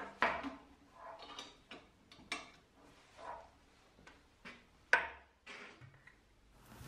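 Light clicks and knocks as a blue coiled plastic air hose and its brass coupling are handled on a steel workbench and connected to the fitting on the vacuum chamber's base. The sharpest click comes about five seconds in.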